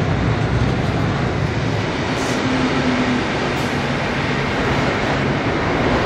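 Freight train rolling past close by, a loud, steady noise of steel wheels running on the rails.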